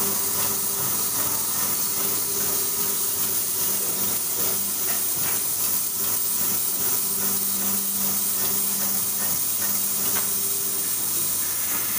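Automatic aerosol actuator and valve assembly machine running: a steady hiss over a low hum from the vibratory bowl feeders, with tones that come and go and many small irregular clicks as parts move through the feeders and the rotary indexing table.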